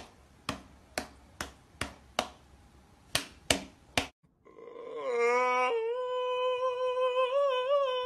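A cat's paws slapping against a person's open palm: about eight sharp smacks over four seconds. Shortly after they stop, a cat's long, high yowl rises and then holds steady, wavering slightly.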